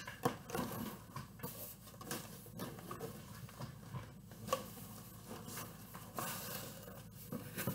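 A cardboard box being opened and handled by hand: scattered rustles, scrapes and light knocks of the flaps and packaging.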